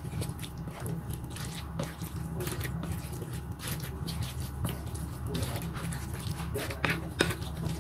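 Wet bakwan batter with shredded cabbage, carrot and sweet corn being stirred with a spoon in a glass bowl: soft squishing with a few sharp clicks of the spoon against the glass, over a steady low hum.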